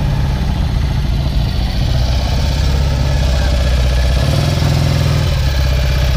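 Motorcycle engine running at low speed with a steady pulsing beat, briefly rising in pitch about four seconds in.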